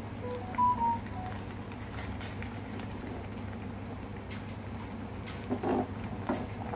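A pot of sour curry bubbling at the boil over a steady low hum. A few short high tones come in the first second, and a metal ladle knocks against the pot several times in the second half as it stirs.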